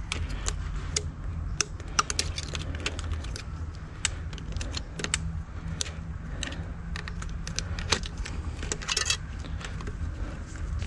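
Irregular small metallic clicks and rattles as the folding frame hinge of an Aventon Sinch e-bike and its latch plate are handled and pushed back together, over a steady low hum.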